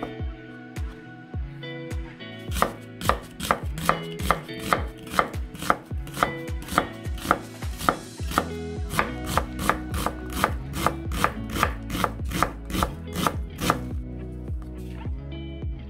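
Chef's knife chopping on a wooden cutting board, first mincing shiitake mushrooms, then slicing and chopping an onion. The strokes come in a quick, steady rhythm of about three a second and ease off near the end.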